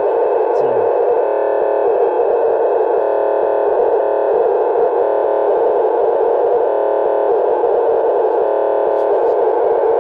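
Strange signal received on 151.000 MHz and played through an ICOM IC-2200H VHF FM transceiver's speaker: a steady, loud buzzing noise that does not let up.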